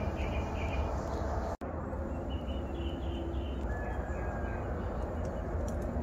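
Wild birds calling in short groups of high chirps, over a steady low rumble; the sound drops out for an instant about one and a half seconds in.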